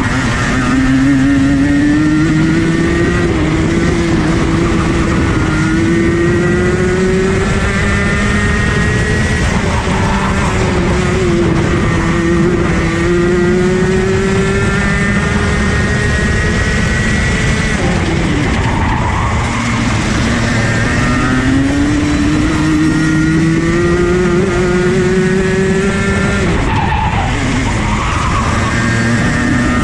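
Rotax Junior Max Evo 125cc two-stroke kart engine at racing speed. Its pitch climbs steadily along each straight and falls sharply several times as the driver lifts and brakes for corners.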